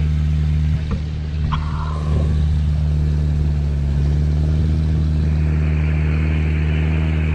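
Towing motorboat's engine running steadily at speed, over the rush of water and spray from the wake.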